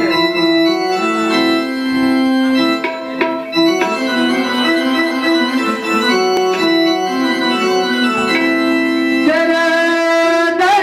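Electronic keyboard playing an instrumental melody in an organ-like voice, with a few tabla strokes. About nine seconds in, a singer starts a long held note that wavers near the end.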